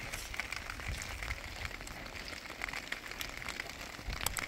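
Rain pattering on a clear plastic sheet stretched over a tent: many small irregular ticks over a steady hiss, with a few sharper clicks near the end.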